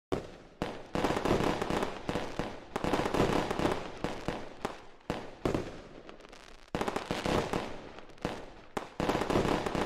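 Fireworks going off: a run of sudden bangs, some close together, each dying away over a second or so.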